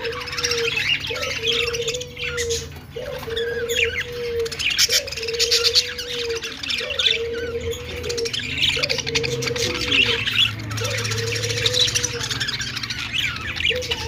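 A flock of budgerigars chattering, with many quick chirps, warbles and squawks overlapping. Underneath runs a low, even tone that repeats about once a second.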